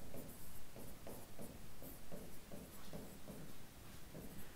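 Marker pen writing on a whiteboard: a run of short, faint strokes, about two or three a second.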